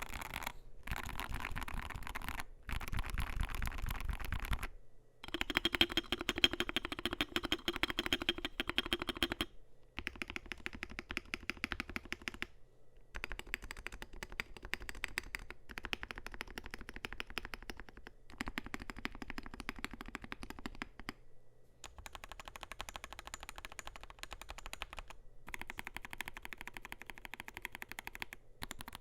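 Fast typing on a Wooting 80HE keyboard with a zinc alloy case, polycarbonate plate, PBT doubleshot keycaps and Lekker L60 v2 magnetic Hall-effect switches: a dense stream of key clicks. It comes in several runs of a few seconds each, with short breaks between them.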